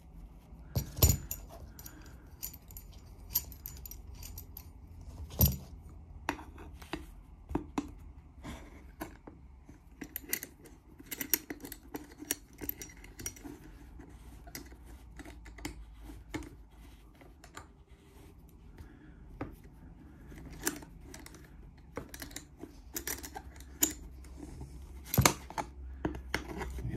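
Steel G-clamp being screwed down by hand: irregular metallic clicks and clinks from its sliding T-bar handle as it is turned, a few sharper ones standing out.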